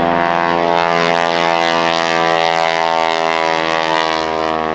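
Engine and propeller of a modified Grumman Ag Cat biplane making a low pass, a loud, steady drone.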